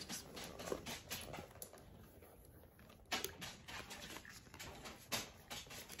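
Faint, irregular clicks and rustles from a leather handbag with a chunky metal chain strap being handled and turned over, with a paper hang tag held up. There is a quieter spell about two seconds in.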